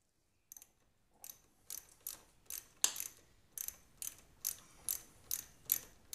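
Hand socket ratchet with a 14 mm socket loosening a motorcycle's front brake caliper mounting bolt: the pawl clicks sharply with each back-swing, about two to three clicks a second, with a short pause about three seconds in.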